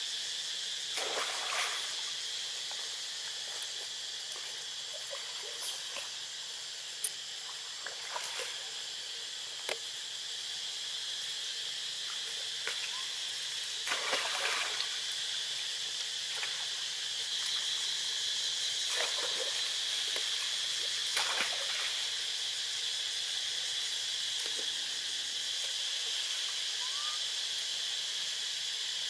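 Steady high-pitched insect drone, with a few brief scuffs and clicks scattered through it.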